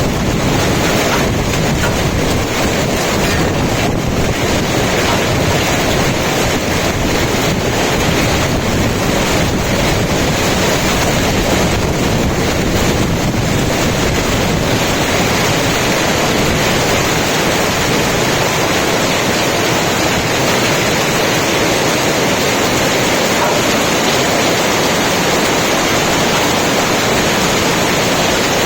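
Hailstorm: hailstones pelting down heavily in a loud, steady, unbroken wash of noise.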